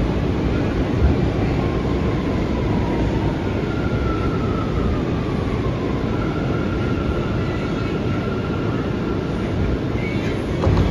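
Bombardier R179 subway car running between stations: a steady rumble of wheels on rail, with a faint whine that drifts down and back up in pitch. A single knock comes near the end.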